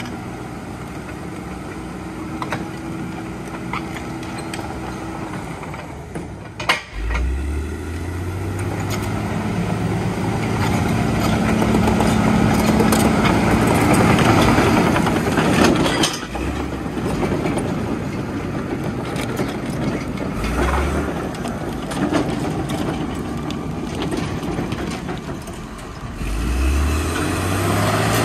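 1997 Dresser TD12-CXP crawler dozer's Cummins 5.9 inline-six diesel running under load as the machine works uphill. The revs rise sharply about seven seconds in and are loudest in the middle, drop back, pick up briefly twice, then rise again near the end.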